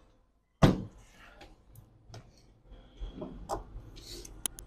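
Plastic laptop top case knocking and clattering as it is handled during disassembly: one loud knock about half a second in, then softer handling knocks and rustling, with a few sharp clicks near the end.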